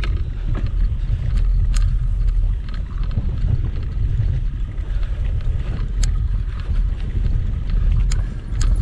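Bike with knobby tyres rolling over grass, a steady low rumble mixed with wind on the microphone, broken by a few sharp clicks and rattles.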